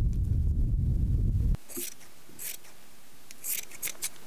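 A loud low rumble that cuts off abruptly about one and a half seconds in, followed by large scissors snipping through cloth in several short, crisp cuts.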